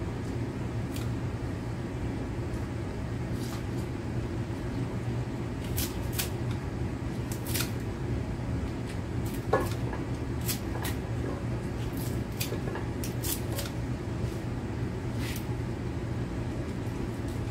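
Kitchen scissors snipping leafy greens into a metal pot, a scattered series of short crisp snips, over a steady low hum.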